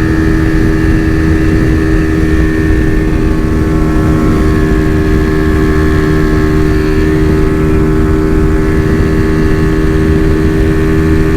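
Big-bore Honda CG Fan 125 single-cylinder four-stroke engine running flat out at a steady, unchanging pitch, with wind rush over the microphone. The engine is held at wide-open throttle and cannot rev any higher: the short 14-tooth front sprocket is holding the bike back.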